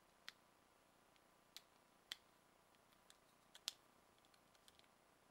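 Faint, scattered clicks and taps of hard resin model-kit parts knocking and pressing together in the hands, about half a dozen, the sharpest about two-thirds of the way through.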